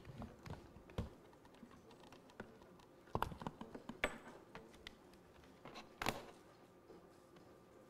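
Typing on a laptop keyboard: scattered, faint key clicks and taps in short bursts, with a few louder knocks, busiest a little after three seconds in and around six seconds.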